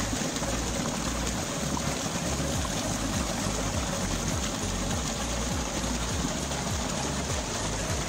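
Small rocky waterfall pouring over boulders and splashing into a pool, a steady rushing hiss of falling water.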